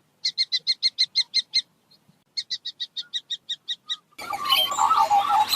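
Common kestrel giving its rapid "kee-kee-kee" call: two quick runs of short, sharp, high notes, about eight a second, with a short pause between them. About four seconds in, a denser, harsher bird chatter starts.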